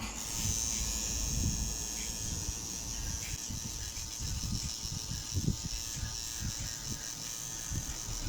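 Electric tattoo machine running steadily with a high-pitched whine, stopping near the end, over low knocks and handling noise.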